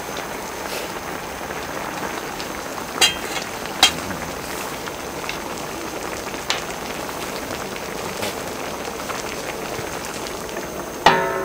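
Pork kimchi stew bubbling and sizzling in a wide sotttukkeong lid pan over a fire, with two sharp clicks about three and four seconds in. Just before the end a metal lid clanks down onto the pan and rings briefly.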